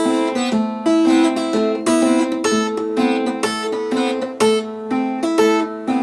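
Guitar fingerpicked in a ragtime blues pattern: the thumb picks the bass notes while two fingers pick treble notes above them, a steady run of separate ringing notes, several a second.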